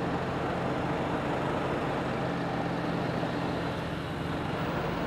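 A motor vehicle's engine idling with a steady, even hum, over street traffic noise.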